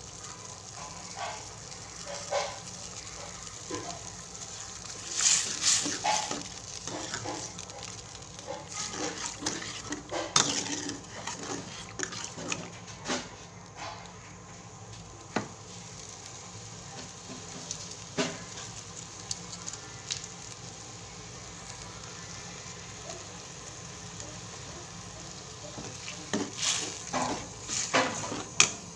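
Metal ladle scraping and knocking against an aluminium wok while a coconut-milk vegetable curry is stirred. The clatter comes in bursts about five seconds in, again around ten to thirteen seconds, and near the end, with a few single clinks between, over a steady low hiss.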